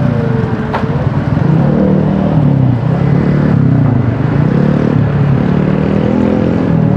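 Hydraulic excavator's diesel engine running loud while digging, its pitch rising and falling over and over as the load comes and goes.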